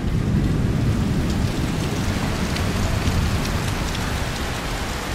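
Heavy rain pouring down in a thunderstorm, with a low thunder rumble underneath that slowly dies away.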